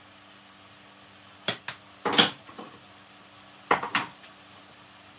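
Three short bursts of clicks and clatter from plastic spice jars being handled, shaken and set down around a metal stockpot, over a faint steady hum.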